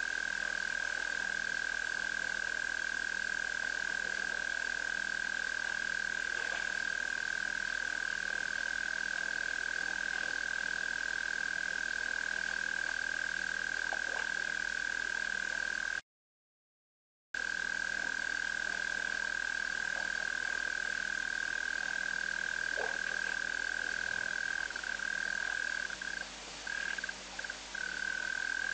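Dense, unbroken frog chorus at a waterhole, a steady high-pitched drone. It cuts out completely for about a second midway and stutters briefly near the end.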